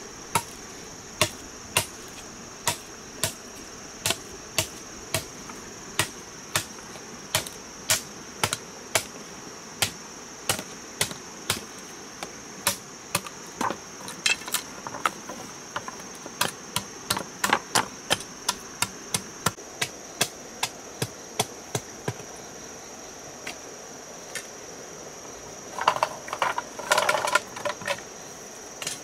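Sharp knocks, about one and a half a second, like something being struck repeatedly, over a steady high-pitched drone. The knocks thin out after about twenty seconds, then come in a quicker, louder flurry near the end.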